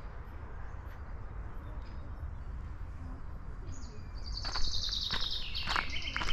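Forest ambience with a low steady rumble; about four seconds in a small songbird bursts into a loud, fast trilling song that steps down in pitch, with a few short knocks alongside it.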